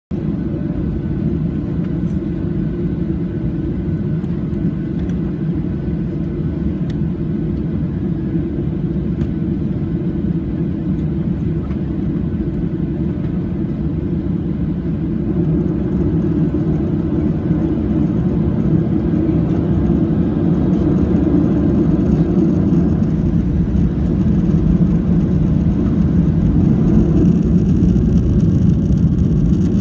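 Boeing 737-800's CFM56 jet engines running at low thrust as the airliner taxis, heard inside the cabin as a steady deep rumble. It grows gradually louder from about halfway through.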